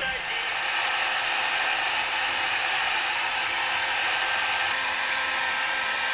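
Steady whirring rush of a small electric motor blowing air, even and unchanging.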